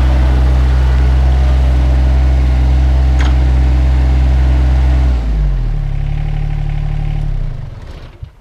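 John Deere 2025R compact tractor's three-cylinder diesel engine running steadily, dropping to a lower speed about five seconds in, then shutting off and dying away near the end. A single click about three seconds in.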